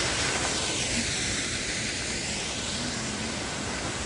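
Waterfall rushing: a steady, strong noise of falling water.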